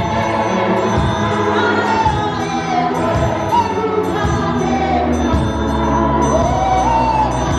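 Live gospel worship music: a church praise team and choir singing with band backing, loud and continuous.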